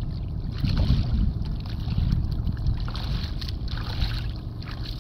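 Shallow water splashing and sloshing around a person's legs as he wades, with water dripping and splattering from a wet cast net. Wind buffets the microphone underneath in an uneven low rumble.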